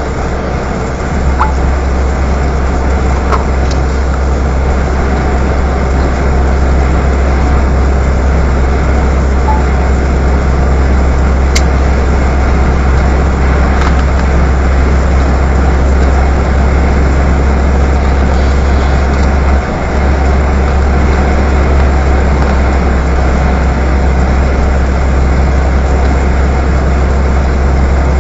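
Steady in-cab road noise of a truck driving at motorway speed: a deep constant rumble of engine and drivetrain under an even hiss of tyres on a wet road. The rumble dips briefly once, about twenty seconds in.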